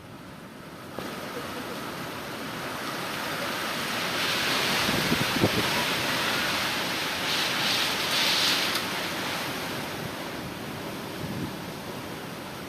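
Strong storm wind blowing in gusts, with wind noise on the microphone; it picks up about a second in, is strongest in the middle and eases off toward the end.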